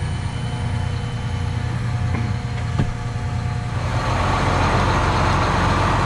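John Deere 8235R tractor's six-cylinder diesel engine idling steadily, heard from inside the cab, with a single click about three seconds in. About four seconds in the sound turns louder and fuller, heard from outside beside the tractor.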